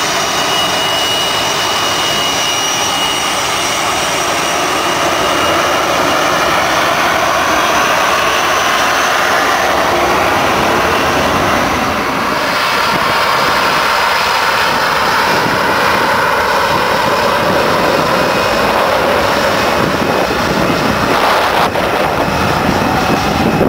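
Jet engine of a MiG-15UTI trainer running steadily as the jet taxis, a loud continuous rush with a high whine that fades after the first few seconds.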